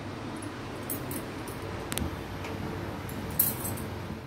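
Hands patting and shaping a soft adhirasam dough disc, with a few light clinks, over a steady faint hiss.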